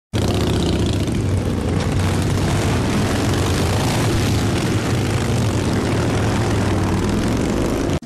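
A group of motorcycle engines running together in a loud, steady rumble as a pack of bikes rides along; it stops suddenly at the end.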